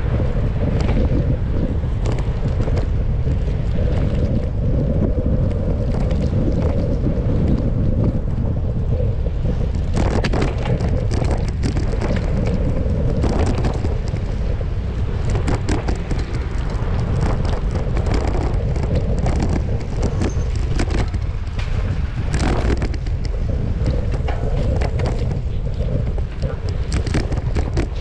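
Wind buffeting an action camera's microphone on a moving bicycle: a loud, steady rumble, with a hum in the first third and scattered clicks and rattles from about ten seconds in.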